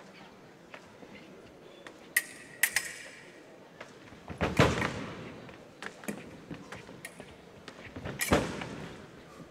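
Foil bout in progress: two sharp metallic blade contacts with a brief ring about two seconds in, then heavy foot stamps and lunges on the piste around the middle and again near the end.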